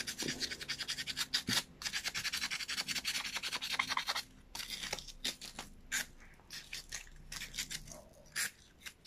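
Fine sandpaper rubbing quickly back and forth over a small metal carburetor slide, buffing off carbon deposits that the mechanic suspects make it stick and cause stalling. The strokes come thick and fast for about four seconds, then thin out to scattered single strokes.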